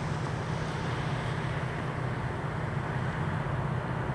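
Distant EMD GP40-2W and GP40 diesel locomotives of an approaching freight train, a steady low engine rumble.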